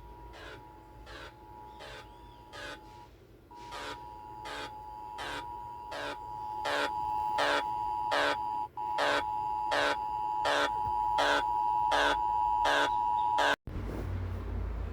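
Emergency Alert System-style alarm: a steady two-note attention tone under rapid pulsing beeps about twice a second. The sound grows louder and cuts off suddenly near the end, leaving a low rumbling noise.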